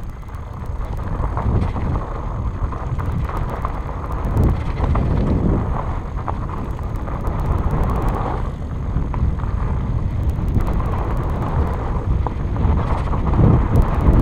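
Fat bike riding over a dirt singletrack: a steady rumble of wind on the microphone and the fat tyres rolling over the ground, with scattered small clicks and rattles from the bike over the bumps.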